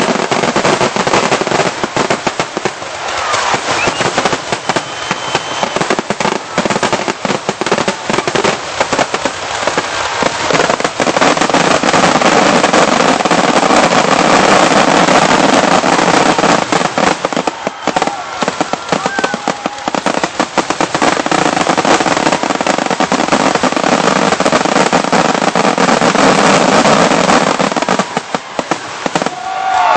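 A continuous barrage of fireworks: rapid bursts and crackling with no gaps, thickest and loudest from about 11 to 27 seconds in.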